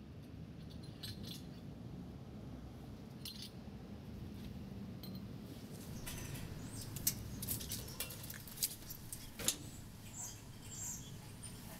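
Rummaging in a metal dumpster: scattered small clinks and rustles of trash, then denser, sharper knocks and scrapes from about six seconds in as someone climbs into it. A low steady rumble underlies it all.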